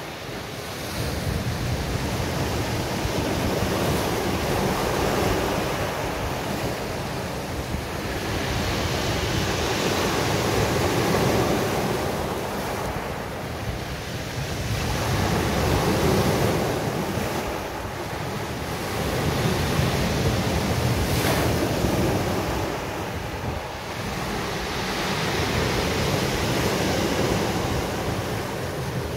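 Mediterranean surf breaking on a beach, the rush of the waves swelling and ebbing every five or six seconds, with wind buffeting the phone's microphone as a low rumble.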